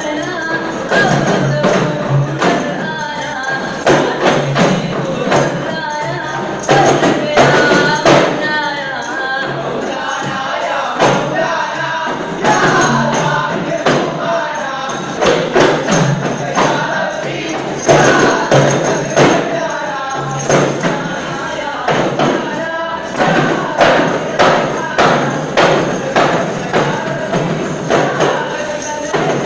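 Arabanamuttu: a group beating arabanas, large single-headed hand frame drums, in a steady interlocking rhythm with louder accented strokes, while the performers chant together over the drumming.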